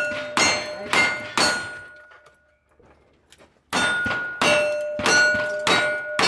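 Gunshots fired in quick succession, each hit answered by a steel plate target ringing with a clear tone: four shots, a pause of about two seconds, then four more.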